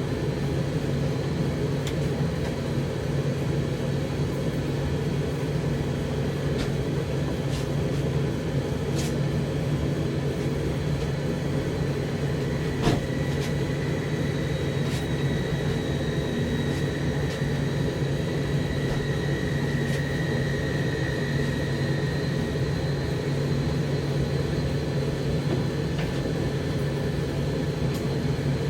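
Zanussi TD162 compact tumble dryer (a White Knight underneath) running a timed high-heat cycle: a steady motor hum with the drum turning, and scattered light clicks. A faint high whine comes in about halfway through.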